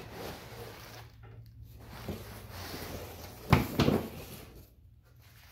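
Handling noise from a parts package being opened, with a small click about two seconds in and two sharp knocks just after the middle.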